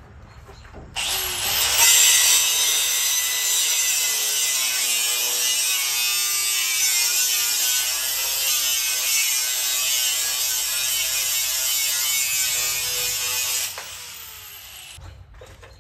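Angle grinder spinning up about a second in, then its disc cutting into the rusted steel bed crossmember with a steady, loud high-pitched grinding hiss. It shuts off near the end and winds down with falling pitch.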